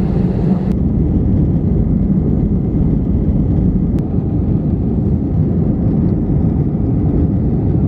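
Steady low rumble of an airliner cabin in flight: engine and airflow noise. The higher hiss thins out less than a second in, and there is a faint click about four seconds in.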